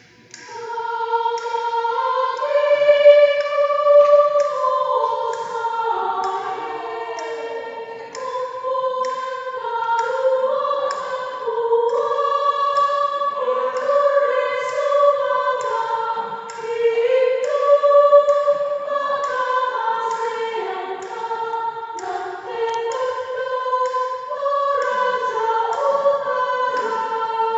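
A mixed choir of men and women singing a song together, holding long notes that change pitch every second or so.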